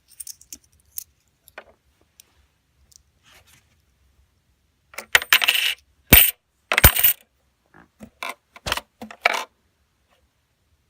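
Dollar coins being loaded into a LEGO brick vending machine, clinking against each other and the plastic bricks. There are a few light clicks at first, a quick run of clinks about five seconds in, and a few more clinks a couple of seconds later.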